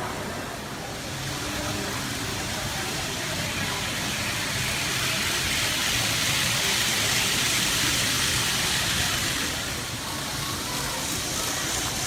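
N-gauge model Shinkansen train running on layout track, its rolling hiss swelling as it comes near and passes, then dying down near the end.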